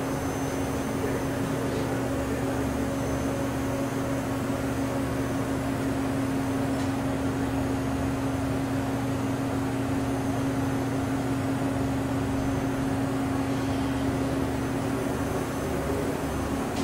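Hurco BMC-20 CNC vertical machining center running through its program cycle with the spindle turning: a steady machine hum with a strong, even low tone.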